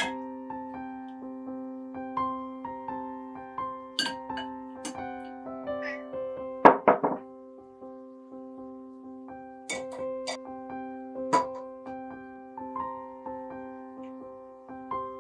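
Gentle background piano music playing throughout. A few sharp knocks and clinks of kitchen utensils come over it, the loudest a quick cluster about seven seconds in.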